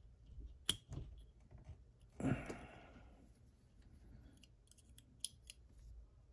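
Small metal clicks of tweezers and lock parts being handled while a Mul-T-Lock 7x7 cylinder is taken apart to remove a shim. There is a sharp click near the start, a brief louder handling noise about two seconds in, and a quick run of small clicks near the end.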